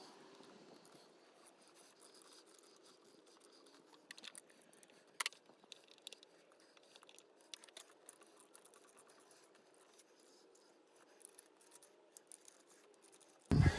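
Faint scattered clicks, taps and light rattles, with a sharper click about five seconds in. A voice starts right at the end.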